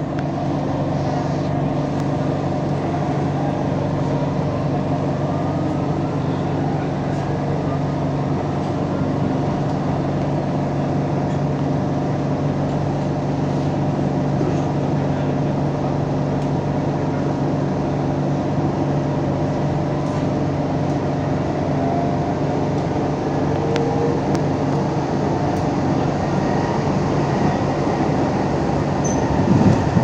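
A train running steadily: a continuous low hum with rolling noise, and a brief louder sound just before the end.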